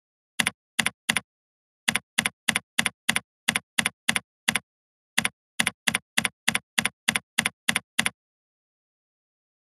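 Computer keyboard keys typed one at a time, about twenty keystrokes at an even pace of roughly three a second with two short pauses, stopping shortly before the end.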